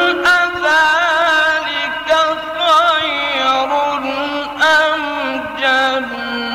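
Male Qur'an reciter chanting in the melodic mujawwad style, holding long ornamented notes with a wavering pitch in one unbroken phrase.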